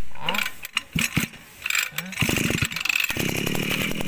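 Recoil starter pulled on an Echo 250 two-stroke brush cutter, the engine turning over in a rapid even pulsing, twice from about two seconds in, against very strong compression.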